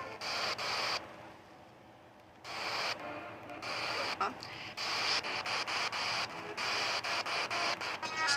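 Radio static from a receiver tuned to a weak NOAA weather channel: a steady hiss broken by crackles and brief dropouts. It fades out about a second in and comes back a second and a half later.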